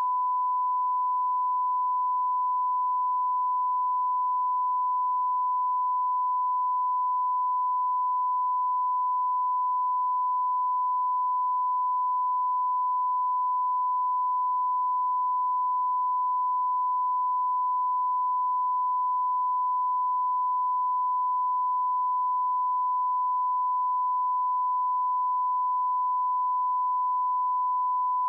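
Steady 1 kHz reference tone of a videotape's bars-and-tone test signal: one unbroken pure tone at constant level.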